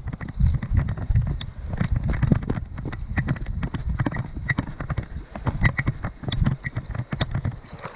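Hurried footsteps over rough ground: a fast, irregular run of thuds and knocks.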